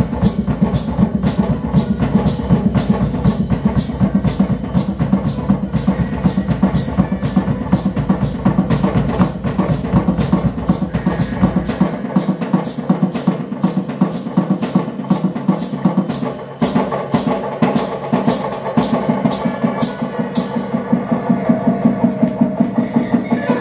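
Live music with a steady percussive beat of about two sharp clicks a second over a dense sustained layer; the deep bass cuts out about halfway through.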